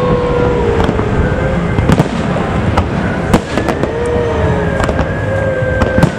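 Aerial fireworks display: rapid sharp bangs and crackling of bursting shells over a continuous rumble, with a few long whistling tones that slide slightly down in pitch.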